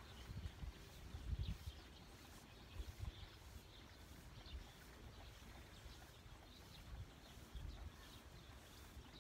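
Faint chirps from small birds, short and scattered, over an uneven low rumble.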